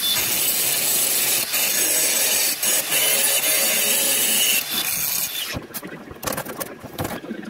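DeWalt cordless angle grinder grinding steel: a loud hissing rasp with a steady high motor whine for about four and a half seconds, then it stops. A few knocks follow as the grinder is set down on the steel table.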